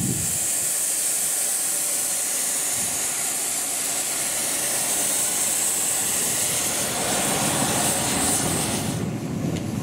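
Steam locomotive Minas de Aller No 2 letting off steam: a loud, steady, high hiss of escaping steam that drops away about nine seconds in.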